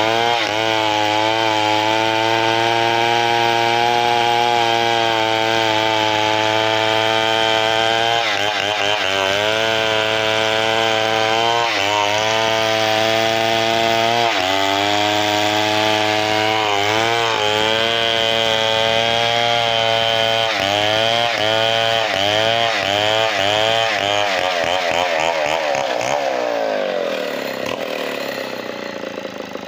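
Large two-stroke chainsaw running at full throttle through a big hardwood log, its pitch dipping briefly several times as the cut loads it. Near the end the engine note drops as the throttle comes off, and it settles toward idle.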